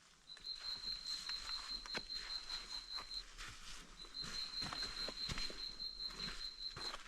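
A high, rapid trill held at one pitch, sounding twice for about three seconds each with a short gap between, over footsteps crunching on the trail.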